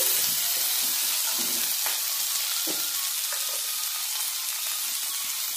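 Chopped onion, capsicum, tomato and sweet corn sizzling in hot oil in an iron kadhai, a steady frying hiss, with a few light taps of a steel spatula.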